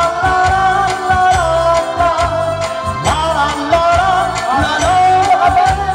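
Live cha-cha dance music from an electronic keyboard, with a steady beat and bass line, and a woman's voice holding long, slightly wavering notes through a PA.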